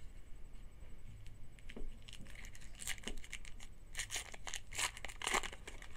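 Trading card pack wrapper being torn open and crinkled, with scattered rustles and a denser run of tearing strokes near the end.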